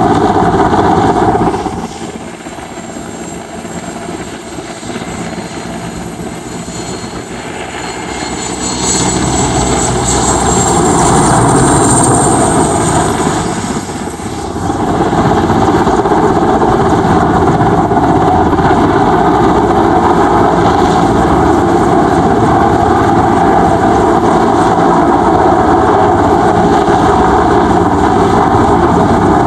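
Mil Mi-8/17-family twin-turbine transport helicopter hovering low, with its rotor and turbines running. The sound drops back a couple of seconds in, swells again with a high turbine whine from about nine seconds, and stays loud and steady from about fifteen seconds on.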